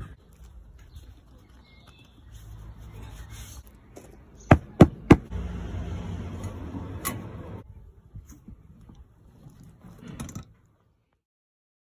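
Hands-on fitting noises at a van seat's reclining bracket: low handling and rubbing with three sharp knocks in quick succession near the middle, then lighter clicks and rustling. The sound cuts off suddenly near the end.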